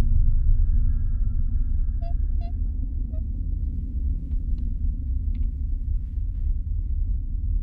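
Horror film sound design: a deep, steady rumbling drone, with faint high held tones early on and a few short faint chirps about two to three seconds in.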